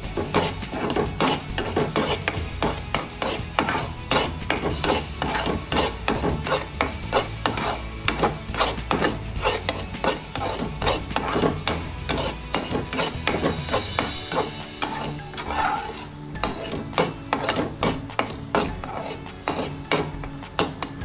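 Metal slotted spatula scraping and knocking against a pan while stirring and folding thick wheat-flour halwa, a few irregular strokes a second.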